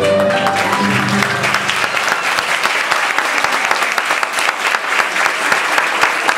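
Audience applauding, with the song's last notes dying away in the first second or so.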